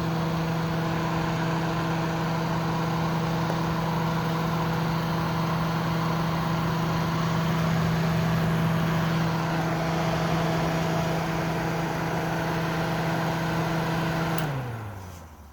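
Stripped-down Kenmore dehumidifier running: a steady motor hum under loud fan noise. Near the end it is switched off and the hum drops in pitch as it spins down and stops. The owner suspects the unit is low on refrigerant.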